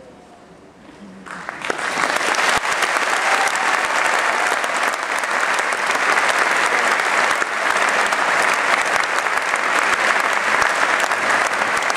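Audience applauding: the clapping starts about a second in, builds quickly and then carries on steadily.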